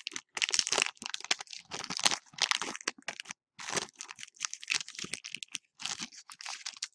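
Foil wrapper of a Pokémon trading card booster pack crinkling as it is opened by hand, in irregular crackly bursts with short pauses.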